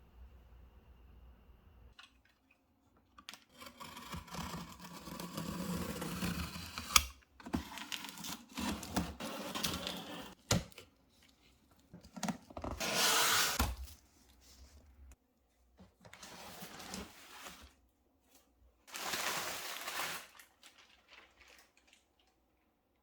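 Unboxing a PC case: cardboard box and plastic packaging rustling and tearing in several bursts, with scattered knocks and clicks. The sharpest click comes about 7 seconds in.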